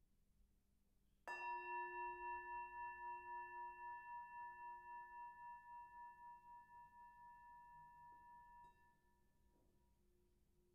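A bell-like metal tone, struck once a little over a second in, with a low note and several higher ringing overtones. It rings down slowly with a wavering, beating loudness and cuts off about nine seconds in.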